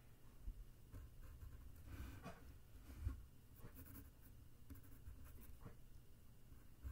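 Faint scratching of a pencil sketching on paper, in short irregular strokes.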